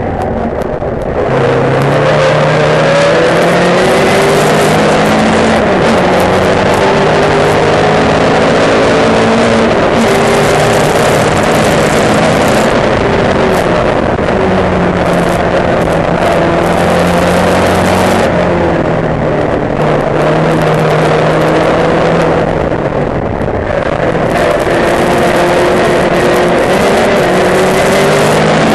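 A saloon race car's engine at full racing pace, heard from inside the car: the note climbs through the revs and drops back again and again with gear changes, with brief lifts just after the start and again about three quarters of the way through.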